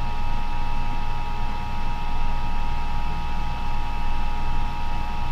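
Steady electrical hum and hiss with a few thin, constant high whines: the background noise of the microphone and recording setup between narrated lines.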